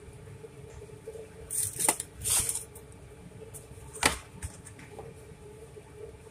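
Two brief rustles about half a second apart, then a single sharp click, over a steady background hum.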